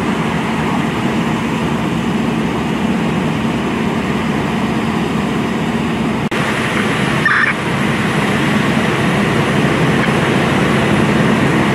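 Steady engine rumble of idling emergency vehicles, with a brief break about six seconds in.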